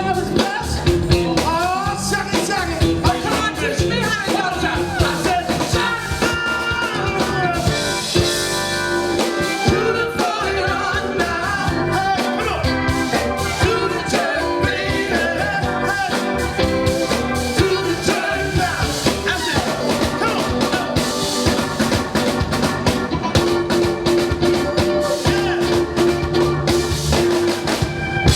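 Live band playing an up-tempo song, with drum kit and guitar, and some singing.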